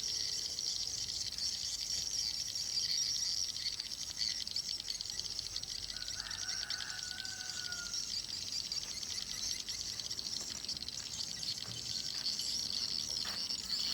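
A steady, high-pitched chorus of rapid chirping, with one short, slightly falling call about six seconds in.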